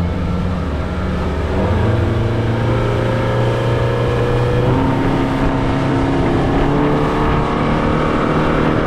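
Motorboat engine running hard under full throttle, its note stepping up about two seconds in and shifting again near the middle as the boat gets under way.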